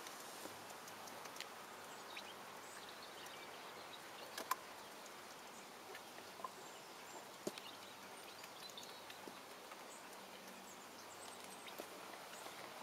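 Silver Appleyard ducklings dabbling and paddling in water: quiet, with scattered small splashes and taps, two sharper ones about four and a half and seven and a half seconds in, and a few faint high peeps.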